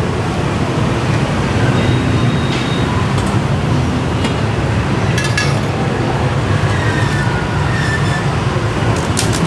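Steady street traffic noise, with a few short sharp clinks and knocks: a cluster about five seconds in and one near the end.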